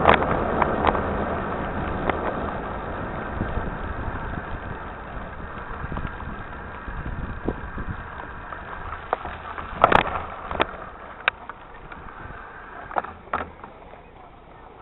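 Mountain bike rolling over a gravel dirt track: steady tyre and wind noise on the bike-mounted camera that slowly fades, with a few sharp knocks and rattles from the bike, the loudest about ten seconds in.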